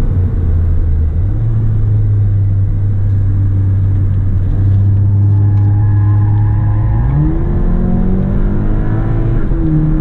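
Skoda Octavia RS245's 2.0-litre turbocharged four-cylinder engine heard from inside the cabin. It holds a steady note through a corner, then pulls hard with rising pitch from about seven seconds in, with a quick upshift near the end.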